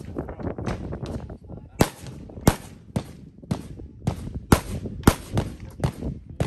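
A string of about ten sharp gunshots, roughly two a second, starting nearly two seconds in, fired by a competitor shooting a practical shooting stage.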